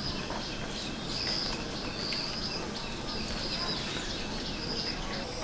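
Rural outdoor ambience: a steady background hiss with a high, short chirping call repeated about every half second.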